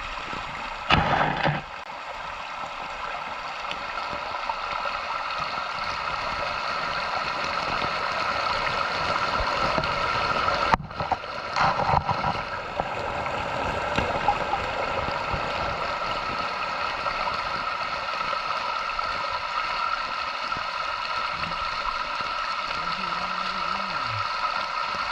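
Steady rushing of a waterfall's water, with a short louder splash or knock about a second in and a brief break about eleven seconds in.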